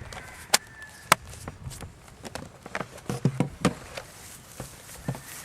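Laptop being handled during reassembly: a scatter of sharp clicks and light knocks, with a few duller thumps about three seconds in.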